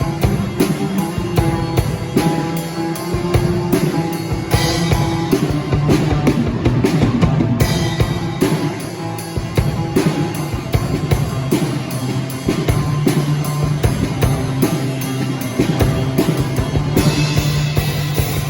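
Live band playing an instrumental passage of a worship song: drum kit keeping a steady beat under bass and guitar, with cymbals swelling twice.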